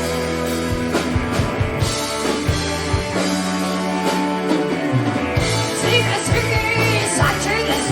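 Live hard rock band playing at full volume, with a voice singing a wavering line near the end.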